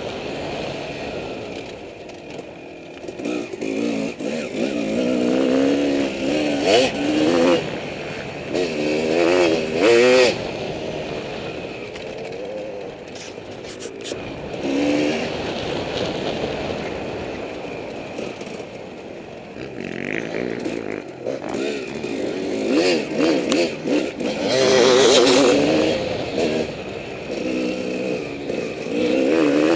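Dirt bike engine heard close from a camera on the bike, revving up and falling back again and again as the rider works the throttle and gears. It is loudest in surges about a third of the way in and again near the end, with scattered knocks from the bike over rough ground.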